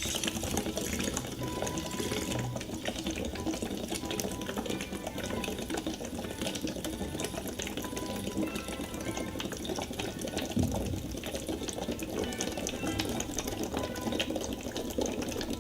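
Steady bubbling of air blown through a straw into a container of water, one long slow exhale against the water's resistance in a breathing-trainer exercise.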